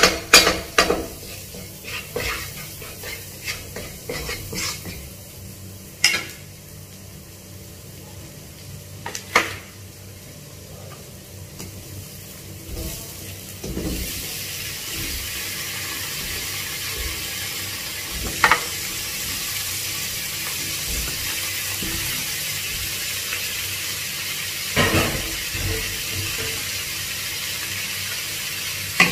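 Minced garlic frying gently in butter in a nonstick wok, with a wooden spatula scraping and knocking against the pan. About halfway through, chopped yellow capsicum and cherry tomatoes are tipped in and a louder, steady sizzle takes over, with a few more knocks of the spatula.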